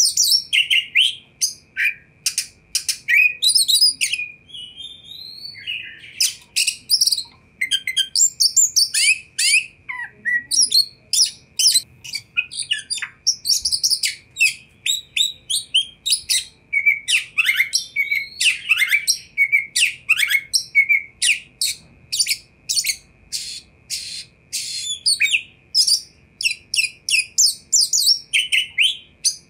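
Caged oriental magpie-robin singing vigorously: a long, varied song of rapid sharp whistles, chirps and clicks, delivered in quick runs with only brief pauses.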